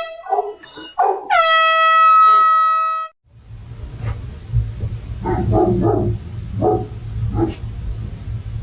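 A horn-like tone sounds in short toots, is held for about two seconds, then cuts off suddenly. After that a dog barks about six times over a low steady rumble.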